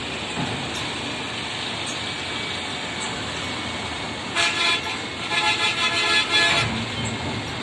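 Vehicle horn sounding twice over the steady din of traffic: a short blast a little past the middle, then a longer one of about a second and a half.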